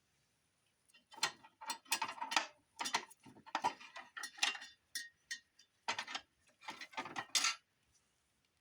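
Irregular series of sharp clicks and small knocks, about a dozen clusters with no steady rhythm, over a faint steady high-pitched whine.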